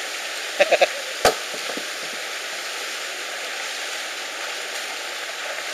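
Shallow stream water rushing steadily over rocks. About a second in there are three quick short clacks, then one sharp knock, as a stone is handled and set down among the rocks.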